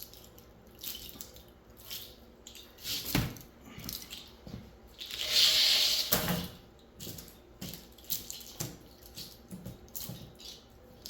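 Clean ACR coil, copper tubing in thin aluminium fins, being bent and folded over by hand: scattered metallic clicks and knocks, with one longer crunching, hissing rasp about five seconds in.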